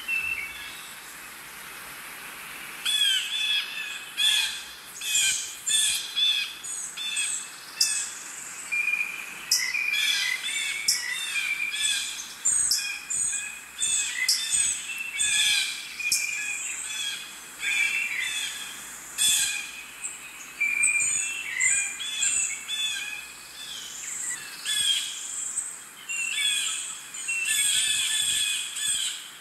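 Birds chirping and calling, many short high chirps in quick succession that start about three seconds in over a faint steady hiss.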